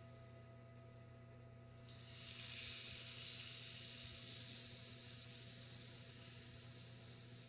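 A soft, high-pitched hiss that swells in about two seconds in and eases off again near the end, over a faint steady electrical hum.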